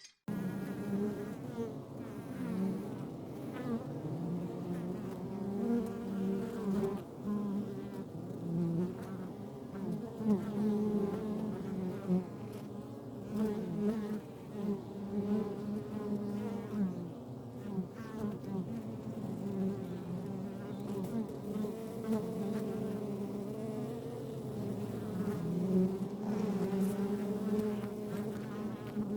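Many bees buzzing around their hive: a steady, dense drone of overlapping wingbeat tones that waver up and down in pitch, swelling and fading as individual bees pass.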